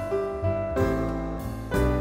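Background music played on piano, with sustained chords and a new chord struck about every second.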